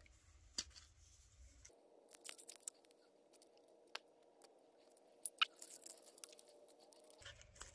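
Faint scratching and scraping of a strip of sandpaper rubbed against and worked into a narrow slot of a small steel boring-head part, with scattered light clicks.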